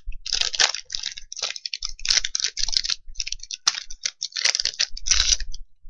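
Crinkling and tearing of a foil Yu-Gi-Oh booster pack wrapper being opened, in irregular crackly bursts that stop shortly before the end.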